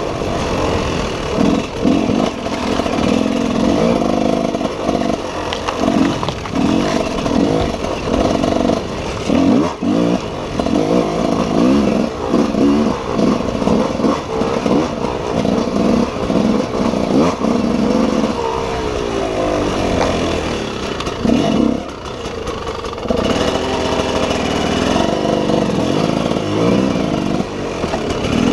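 Enduro motorcycle engine revving up and back down over and over as the rider works the throttle along a twisty forest trail, the pitch rising and falling every second or so. It eases off briefly about three quarters of the way through before picking up again.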